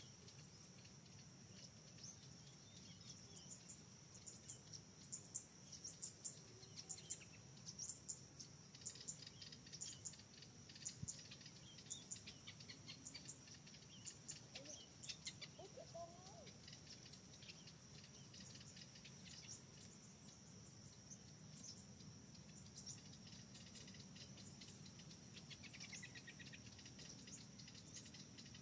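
Faint forest ambience: insects droning steadily at a high pitch, with scattered small clicks and ticks through the first half and a couple of faint bird-like calls, one a short falling note near the end.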